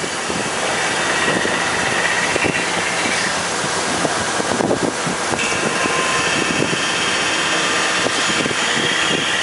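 Steady machine-shop running noise: a continuous mechanical hum and hiss, with a high whine that comes in about five seconds in.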